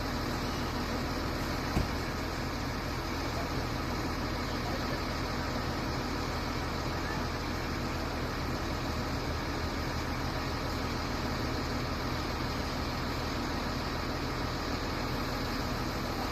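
A machine running steadily with a constant low hum, with one brief click about two seconds in.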